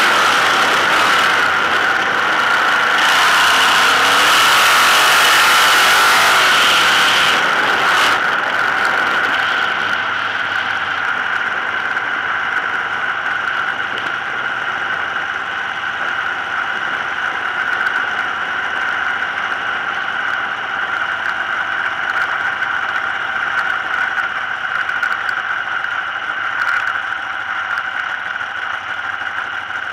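Dirt-track sprint car engine heard from a camera mounted in the car's cockpit, running at a steady pitch. A loud rushing noise rides over it for the first eight seconds or so, then drops away, leaving the engine steadier and a little quieter.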